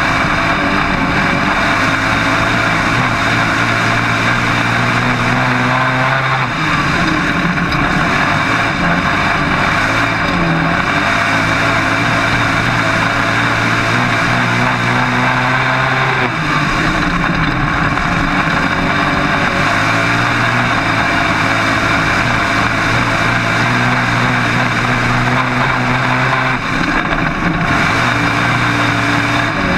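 Dirt-track modified race car's V8 engine heard from inside the open cockpit at race speed: the engine note holds steady for several seconds, then wavers and shifts briefly about every ten seconds, three times, as the car goes through the turns, over a constant rush of wind and track noise.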